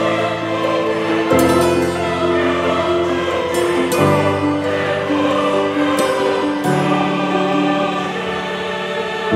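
Background music of slow, held chords that change about every two to three seconds.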